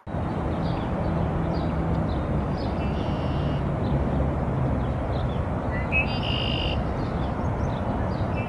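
Outdoor ambience of a steady low rumble and hiss, with scattered short bird chirps and two longer bird calls, about three and six seconds in.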